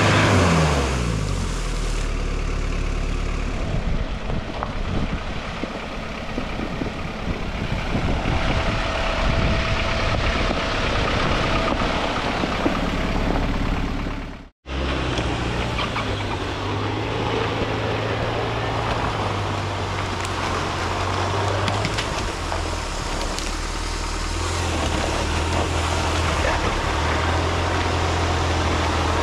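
Daihatsu Rocky off-roader's engine working through mud and water, its revs falling about a second in, with a rushing noise of tyres and splashing. The sound cuts out briefly midway, and the engine then runs at a low, fairly steady pitch that rises and falls with the throttle as the vehicle wades on.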